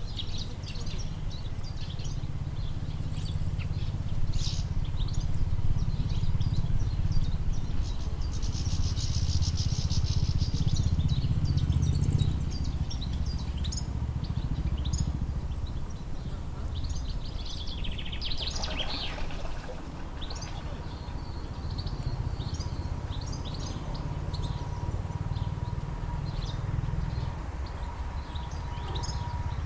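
Songbirds chirping and singing in short, repeated calls over a steady low rumble, with a buzzing trill about eight to twelve seconds in.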